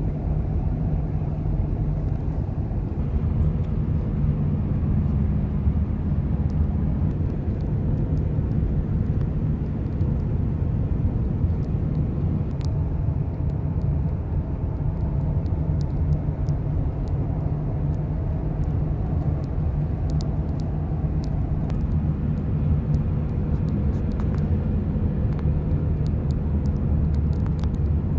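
Steady road noise inside a moving car's cabin: a constant low rumble of engine and tyres on asphalt.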